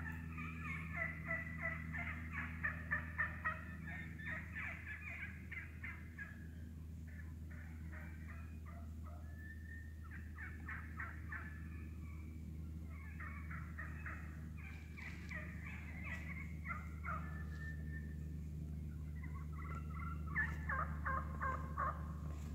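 A flock of wild turkeys clucking and cutting as they feed. The calls come as quick runs of short, sharp notes from several birds, in clusters that are loudest in the first few seconds and again near the end.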